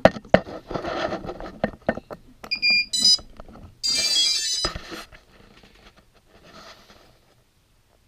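Clicks and clatter of handling the quadcopter and its wiring, then a short run of high electronic beeps and about a second of denser pitched tones from the quadcopter's electronics as they power up.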